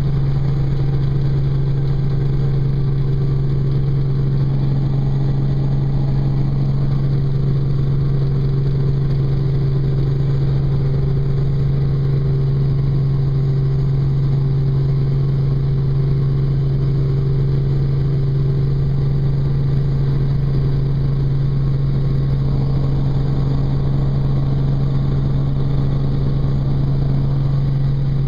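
Piston-engine helicopter's engine and rotors heard from inside the cabin during lift-off and climb: a loud, steady drone with a strong low hum that never lets up.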